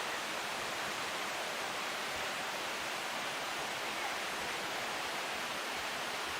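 Steady rush of a mountain river, the Kiyotaki River, flowing over rocks, an even hiss of water with no change in level.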